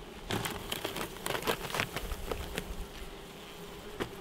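Honeybees humming steadily at an open hive, with a run of short rustles and light clicks in the first couple of seconds and one more near the end as the canvas cover is peeled back off the frames.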